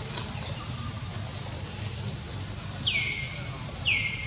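Two high-pitched animal calls about a second apart, each sliding quickly down in pitch and then holding briefly, over a steady low hum.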